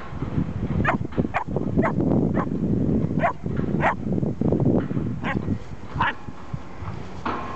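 Dogs at play, giving about nine short, high yaps at irregular intervals, over a low wind rumble on the microphone.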